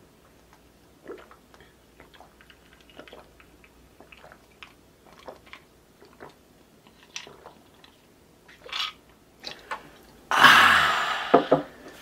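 Swallowing gulps of iced orange soda from a glass, a series of soft gulps and clicks, then about ten seconds in a loud, breathy exhale after drinking, followed by the glass being knocked down onto the table.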